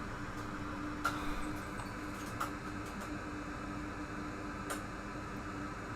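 Steady hum of a small fan, with a few faint clicks about a second in, about two and a half seconds in and near five seconds in.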